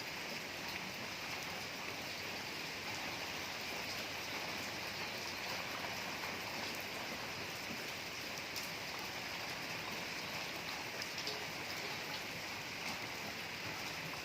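Steady rainfall, with small drips scattered through it.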